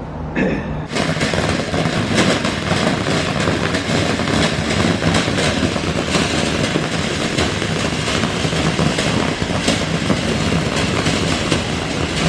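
A firework burning with a dense, continuous crackle and hiss, starting about a second in and holding steady.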